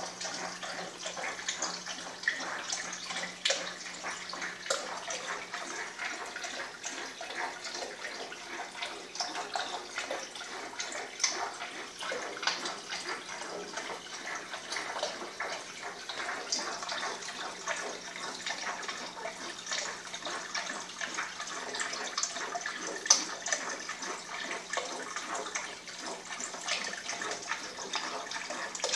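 Water trickling and splashing steadily into the fish tank of a small aquaponics system, with many small irregular splashes. A faint steady low hum runs beneath.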